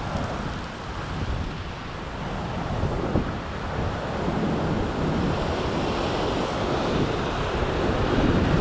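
Ocean swell surging and washing over the rock ledge below, with wind buffeting the microphone; the surf grows a little louder toward the end.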